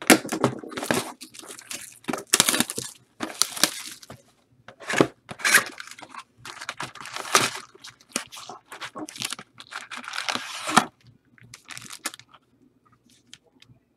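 Trading-card pack wrappers being torn open and crinkled in short, irregular bursts, thinning out near the end.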